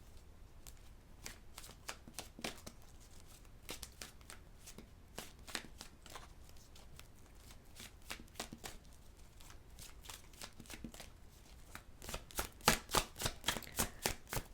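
Tarot cards being shuffled by hand: scattered soft card flicks, then a faster run of louder snaps near the end.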